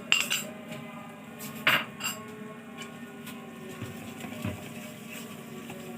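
Metal spoon knocking against a cooking pot as spoonfuls of ghee go in for a béchamel roux: a few quick taps at the start and one louder clink a little under two seconds in, then only faint kitchen sounds.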